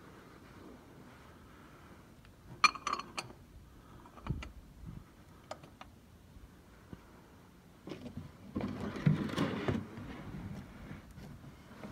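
Small metal clinks and clicks as the canister oil filter housing cap of a Lexus LC 500 is handled and fitted by hand, with a short ringing clink cluster about three seconds in and a dull knock after it. Near the end comes the loudest part, a couple of seconds of scraping and rustling as the cap is worked into place.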